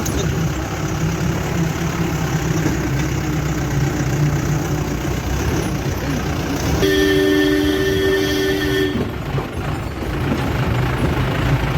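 Jeep engine running with road noise on a bumpy off-road track. About seven seconds in, a steady two-tone horn sounds for about two seconds.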